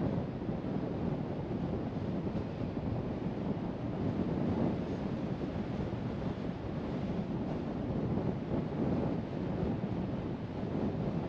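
Steady road and wind noise from a moving car: an even low rumble with no engine note or other distinct sound standing out.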